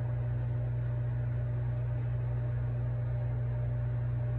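Steady low hum with a faint hiss behind it, unchanging throughout.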